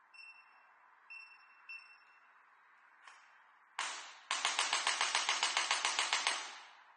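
Digital electric chiropractic adjusting gun: three short electronic beeps from its control buttons, then a single sharp knock, and about half a second later a rapid, even train of knocks, roughly nine a second for about two seconds, as its impact head fires repeatedly.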